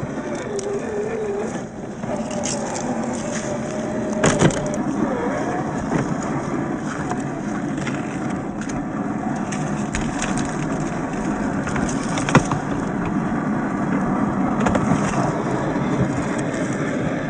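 Brushed RC4WD 20T electric motor and drivetrain of a 1/10-scale MST CFX RC crawler whining with a wavering pitch as it drives off-road, with scattered clicks and knocks from the ground under the tyres. A sharp crack sounds about 12 seconds in.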